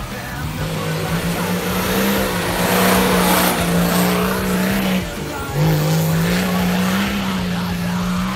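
Off-road 4x4 competition vehicle's engine revving hard under load on a dirt climb, its note rising and holding high, dipping briefly about five seconds in, then climbing again, with the hiss of tyres spinning in loose earth.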